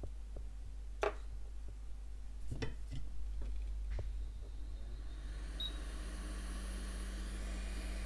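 A few light knocks and clicks of tools being handled, the loudest about a second in. About five seconds in, a Quick 861DW hot air rework station's fan starts: a hum rises briefly in pitch, then settles into a steady blowing hiss.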